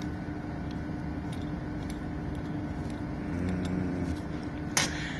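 Steady background hum with a constant low tone. Over it, metal pump seal parts click lightly as they are handled against a steel workbench, with one sharper metallic clink near the end.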